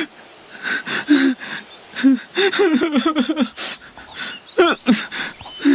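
A young man's voice sobbing and whimpering in a string of short, broken cries.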